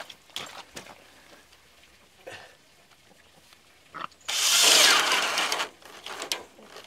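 Cordless drill running into the wooden gate post for about a second and a half, about four seconds in, after a few light handling clicks.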